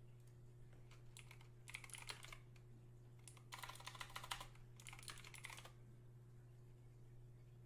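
Three short bursts of rapid, light clicking, about a second in, at the middle and a little after, over near silence with a faint steady hum.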